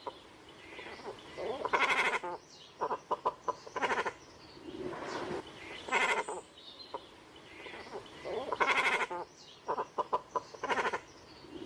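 Great cormorants calling: repeated croaking calls about a second long, with two quick runs of clicks between them.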